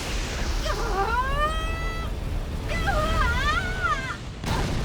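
Cartoon battle-creature cries out twice: a long rising yelp, then a wavering whine, over a low rumble, with a short whooshing burst near the end.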